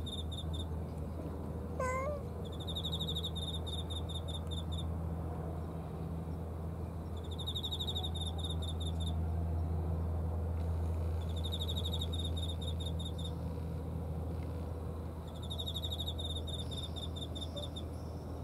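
A cat gives one short meow about two seconds in. Underneath, an insect chirps in fast, even trills about two seconds long, repeating every few seconds, over a steady low rumble.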